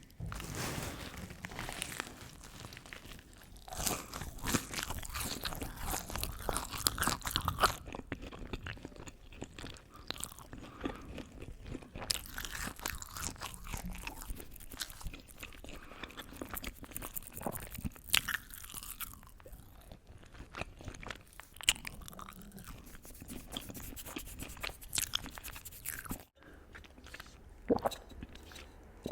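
Close-miked chewing and crunching of food in an eating-ASMR recording: wet mouth sounds and crisp, crackly bites, with a denser run of crunching about four seconds in and again around twelve seconds.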